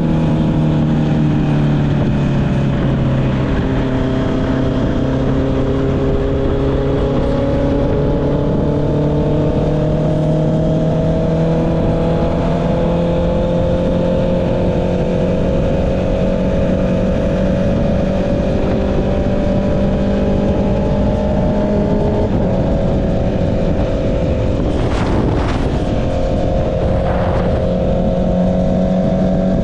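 Honda CB650R's inline-four engine with an Akrapovic exhaust, running at a steady cruise under wind noise. The engine note dips slightly and then climbs slowly. A few brief whooshes come near the end.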